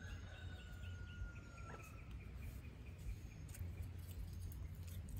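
Faint outdoor ambience: a thin whistle-like note held for about two seconds at the start, a run of faint short chirps, and a low steady rumble underneath.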